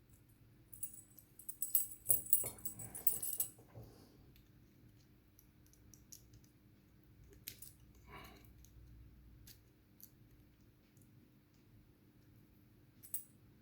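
Light metallic clicking and jingling of small padlock parts and hand tools being handled, busiest in the first few seconds, then a few scattered faint clicks.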